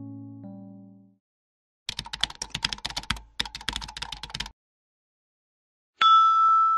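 Rapid computer-keyboard typing clicks in two quick runs, with a brief break between them. Piano music fades out at the start, and near the end a sudden bright chime rings out and holds.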